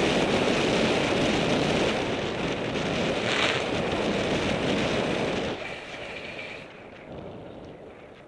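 Wind rushing over the camera microphone on a fast bicycle descent, dropping off sharply about five and a half seconds in and fading as the bike slows. A brief high-pitched sound comes in about the middle.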